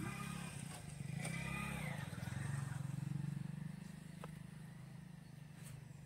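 An engine running steadily with a low, even hum, fading away after about four seconds.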